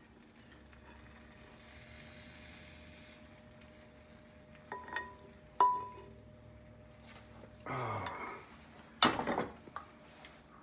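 Serving spoon scraping sauce out of a nonstick saucepan onto broccoli in a bowl, with two short ringing clinks of metal about five seconds in. Near the end come two louder knocks as the pan is set back down on the stove grate.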